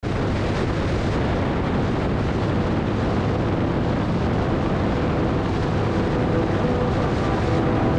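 Motorcycle at road speed: a steady roar of wind buffeting the microphone over the engine.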